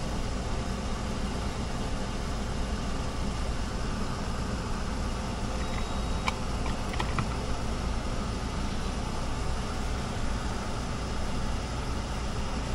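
Vehicle engine idling, a steady low hum heard from inside the cab with the driver's window open. A few light clicks about six to seven seconds in.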